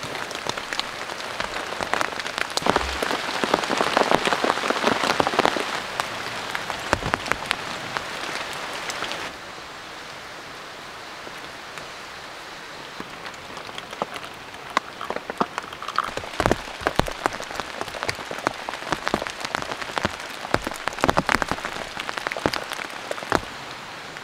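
Heavy rain falling on a tarp-roofed shelter: a steady hiss with many sharp drop hits. About nine seconds in it falls abruptly to a softer, even hiss, and the sharp drop hits return a few seconds later.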